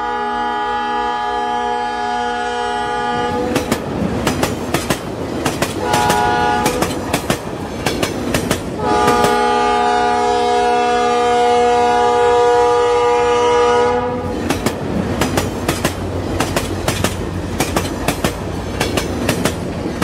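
Toy steam locomotive's train sound effects: a long steady whistle tone for about three seconds, then rapid clicking, a second long whistle from about nine to fourteen seconds, and rapid clicking again.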